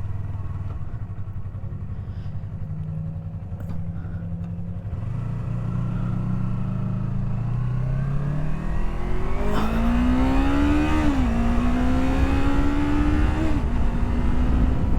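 Yamaha R3's parallel-twin engine running steadily under the rider, then accelerating. Its pitch climbs and drops sharply at an upshift about two-thirds of the way in, then climbs again to a smaller drop near the end. Rushing wind noise grows louder as speed builds.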